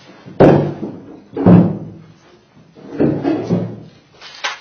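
Three loud bangs, roughly a second or more apart, each ringing out briefly in the room, followed by a smaller knock near the end.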